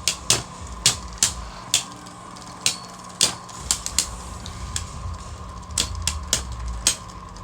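Two spinning Beyblade tops, Helios Volcano and Rage Longinus, clashing in a plastic stadium: a run of sharp, irregular clicks as they hit each other and the stadium walls.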